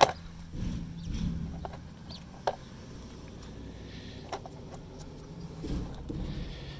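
Gloved fingers pressing a rubber O-ring back into the groove of a plastic bucket lid. A sharp click comes right at the start, then a few smaller clicks and squeaks over low rubbing and handling of the lid.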